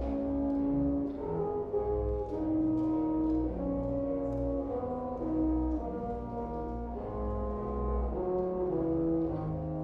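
Background music played by brass instruments: a slow melody of held horn-like notes over a low bass line.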